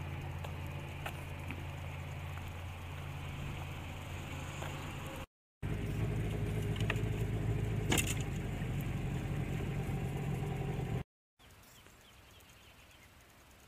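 A steady low engine drone, then after a cut a louder small outboard motor running as the boat heads out from the docks, with a few sharp clicks. After another cut the engine is off and only faint lake background remains.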